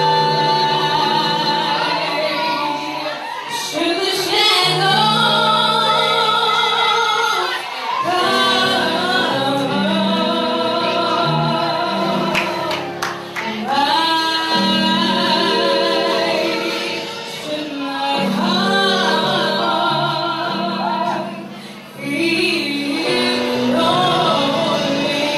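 A young woman singing a gospel song solo into a handheld microphone, in long phrases with held, wavering notes and short breaths between them every few seconds, over a steady low backing accompaniment.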